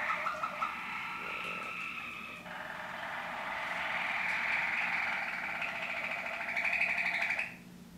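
Waterslager canary singing one long continuous song of rapid rolling trills, switching to a different tour about two seconds in and breaking off abruptly near the end.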